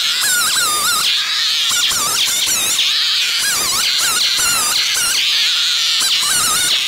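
REZER FGS-5200MG 52 cc two-stroke chainsaw cutting through firewood logs at high revs, the engine pitch wavering up and down as the chain bites into the wood.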